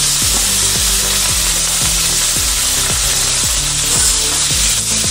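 Sliced onion sizzling steadily in hot butter and oil in a kadai, stirred with a metal spatula.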